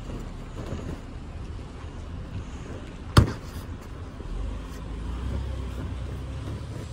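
A single sharp slap about three seconds in, as a child lands on the vinyl cover of a large crash mat, over a low steady rumble.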